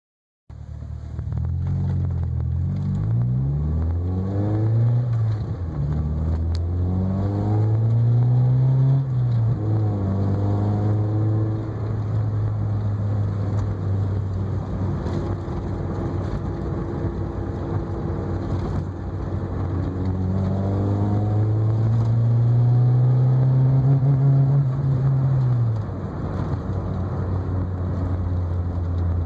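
Toyota AE86 Corolla engine idling, with the throttle blipped a few times in the first ten seconds and the revs raised and held for several seconds later on before dropping back to idle. The owner suspects it is misfiring.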